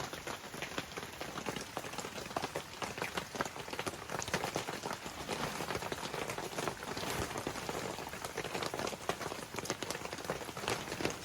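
Steady rain falling, with many individual drops tapping on a plastic tarp stretched overhead.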